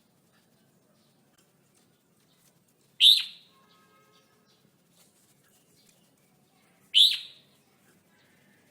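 Red-whiskered bulbul giving two loud, short calls about four seconds apart, each sweeping quickly down in pitch.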